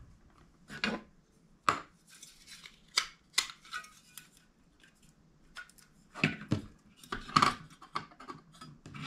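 Scattered light metallic clinks and taps as a small aluminium tin is handled and set down on a table, then a folding metal stove stand is unfolded and put down around it. The loudest clacks come in the second half.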